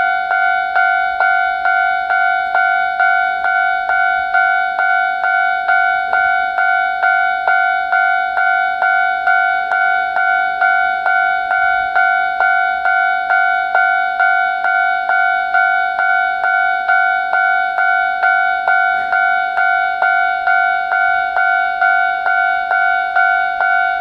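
Japanese railway level-crossing alarm bell ringing, a steady electronic ding repeated about twice a second.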